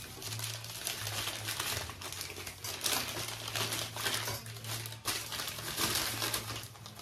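Packaging crinkling as a bag is handled and opened, in irregular rustling bursts.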